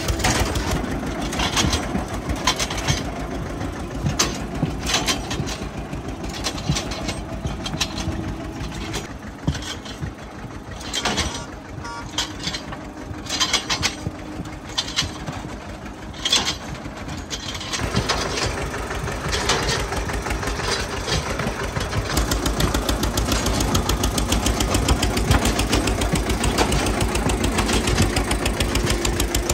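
Eicher 242 tractor's two-cylinder air-cooled diesel engine running steadily as the tractor is driven on fully deflated tyres, with scattered knocks through the middle part. The engine grows louder about two-thirds of the way in.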